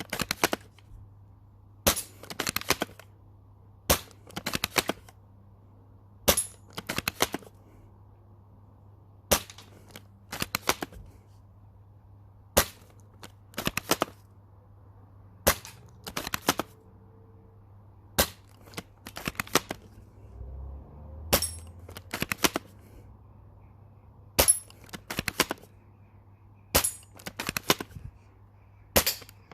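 MAS36 replica airsoft rifle, a spring bolt-action converted from a Double Eagle M61, fired about a dozen times at a steady pace. Each sharp snap of a shot is paired with a quick run of clicks from the bolt being worked.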